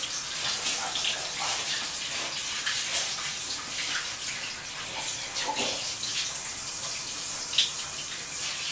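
Water running from a handheld shower sprayer and spattering into a bathtub in a steady hiss. There is one brief louder sound near the end.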